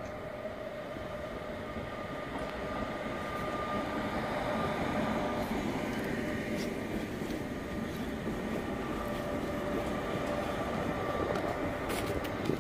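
Trains rolling slowly over the station tracks: a steady rumble of wheels on rail with a thin, steady whine, swelling a little in the middle, and a few sharp clicks near the end.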